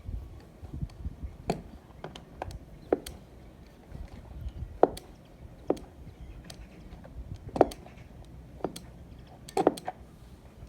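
Irregular sharp knocks and clicks, about a dozen spread across ten seconds, a few of them louder than the rest, over a low background rumble.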